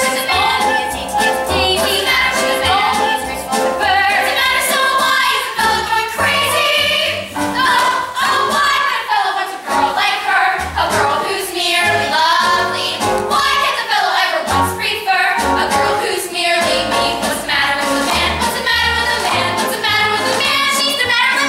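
Young female cast singing a musical-theatre number, several girls' voices together, over a musical accompaniment.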